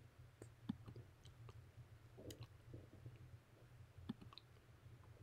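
Near silence: a low room hum with a few faint, scattered clicks.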